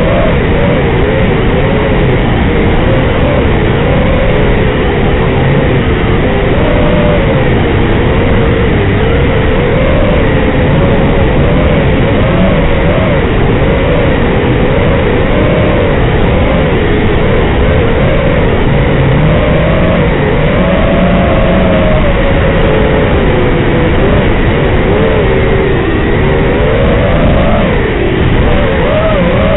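FPV quadcopter's four Racerstar 2205 brushless motors and propellers whining in flight on a 4S battery, the pitch rising and falling steadily with the throttle, picked up by the onboard FPV camera's microphone.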